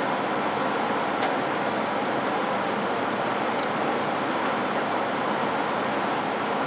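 Steady rushing of a biosafety cabinet's blower and airflow, with three faint light clicks: about a second in, around the middle, and a little after.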